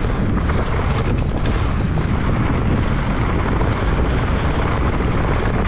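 Wind rushing over the microphone of a mountain bike descending a dirt trail at speed, with steady tyre noise and scattered clicks and rattles from the bike.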